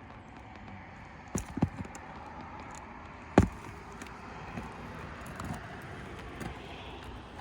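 A pry bar working a roofing nail out of an asphalt shingle: a quick cluster of sharp knocks about one and a half seconds in, then one louder knock near the middle, over steady outdoor background noise. The shingle is tearing around the fastener rather than letting the nail come free.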